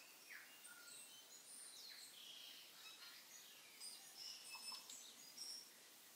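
Faint, scattered bird chirps and short whistled calls over a low background hiss.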